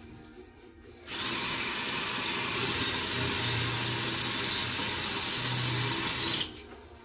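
Cordless drill boring into a wall: it starts about a second in, runs steadily for about five seconds, then stops abruptly.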